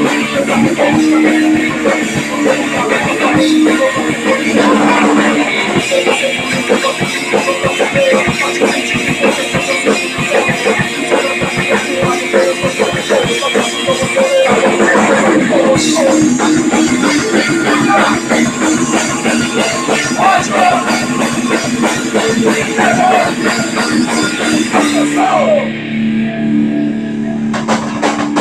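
Punk rock band playing live: distorted electric guitar, bass and drum kit. Near the end the full sound drops away to a held low note under a fast run of short, even hits.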